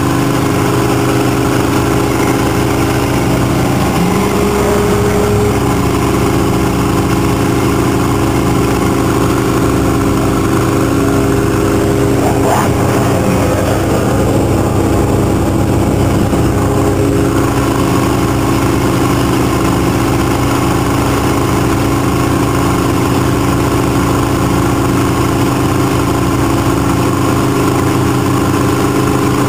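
Powerboat engine running steadily at speed, heard from aboard, with a constant drone over the rush of the wake.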